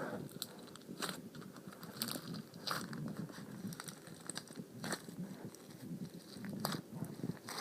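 Floam slime being squeezed and poked by hand: its foam beads crackle in scattered, irregular sharp crunches over a soft, faint squishing.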